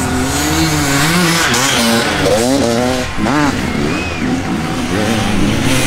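Dirt-bike engines revving hard, the pitch climbing and falling with the throttle, with quick sharp revs about two and three seconds in.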